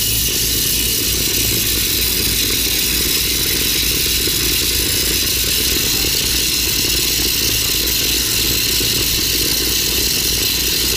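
Steady hiss of a steam jet from a Monair steam cleaner's wand blasting a motorcycle drive chain, with a steady low rumble beneath it.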